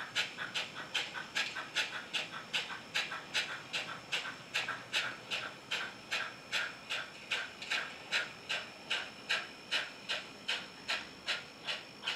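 HO scale model steam locomotive's onboard sound unit chuffing steadily, about three even exhaust chuffs a second, as the engine pulls a freight train upgrade.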